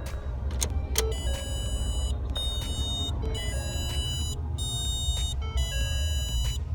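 PassTime GPS tracker and starter-interrupt device in the car, beeping in repeated high electronic tones about once a second over a low steady rumble. The beeping is a sign that the ignition has been cut remotely over a missed payment, so the engine won't start.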